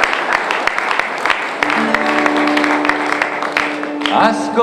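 Audience applause, with acoustic guitars coming in under it about two seconds in, playing steady held chords. A man's singing voice starts near the end.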